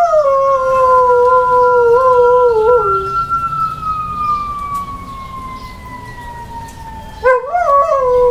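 Carolina Dog howling along to a fire truck's wailing siren. The howl runs for about the first three seconds, stops while the siren's pitch slowly falls, and starts again about seven seconds in as the siren begins to rise.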